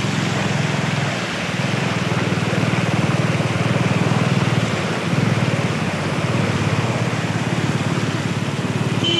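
Small motorbike engine running steadily while riding through floodwater, with a constant hiss and splash of water thrown up by the wheels.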